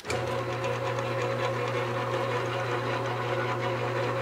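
Enco 9x20 metal lathe switched on and running with its gear train in neutral, driving a 3D-printed PLA 80-tooth gear: a steady motor hum with a light, fast ticking from the gears.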